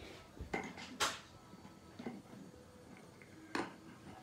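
Handling noise from a phone being moved about: a few sharp knocks and clicks, about half a second, one second and three and a half seconds in, with quiet room tone between.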